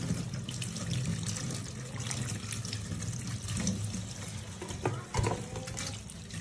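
Kitchen tap water running steadily onto raw beef in a stainless steel sink while hands rub and rinse the meat, with a brief knock about five seconds in.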